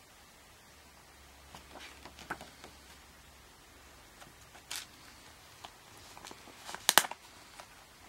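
Paper inserts rustling and being shuffled by hand with light clicks, then a quick cluster of loud plastic clicks just before the end as a disc is pried off the centre hub of a plastic Blu-ray case.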